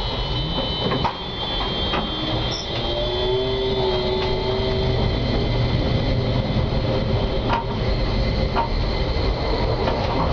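Konstal 105Na tram running along snow-covered track, heard from the driver's cab: a steady rumble of wheels and motors with a few sharp clicks as the wheels cross rail joints and a switch. Thin high squealing tones run through it, and a short whine rises about three seconds in.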